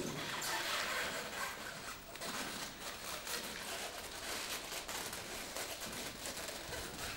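Close handling noise: continuous rustling and scraping with many small irregular clicks, like hard plastic being rubbed and fiddled with.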